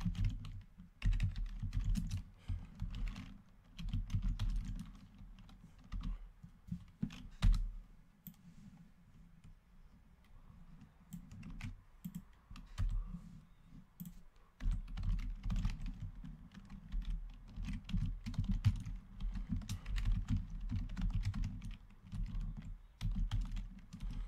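Typing on a computer keyboard: quick runs of keystrokes, thinning to scattered clicks for a few seconds around the middle, then steady typing again for the last ten seconds.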